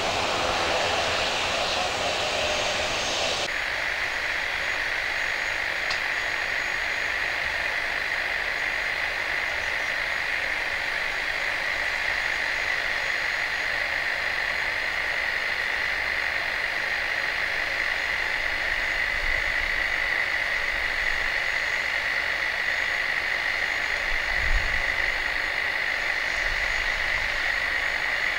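Jet engines of a Boeing 737-800 running at taxi power: a rushing engine noise gives way abruptly about three seconds in to a steady engine hiss with a high whine. A brief low thump comes near the end.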